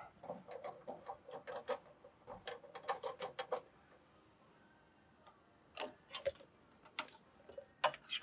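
Strut coil-spring compressor being worked by hand: a fast run of sharp metal clicks, about five a second, for some three seconds, then a pause and a few single clicks near the end.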